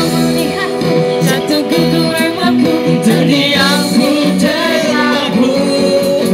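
Live amplified duet: a woman and a man singing a pop song into microphones through a small PA speaker, backed by electric bass and guitar.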